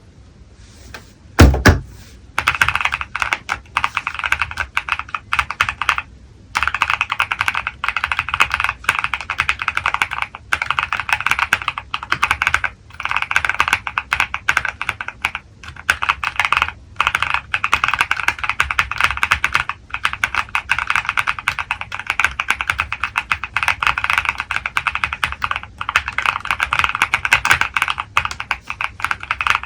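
Fast, continuous typing on a Tofu65 2.0 mechanical keyboard with Vertex V one linear switches and PBT Cherry-profile keycaps, broken by a few short pauses. A loud low thump about a second and a half in, just before the typing starts.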